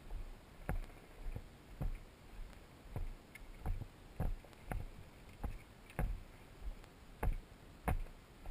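Footsteps of a hiker walking at a steady pace on a rocky dirt trail, about one and a half steps a second, each a short crunching thud.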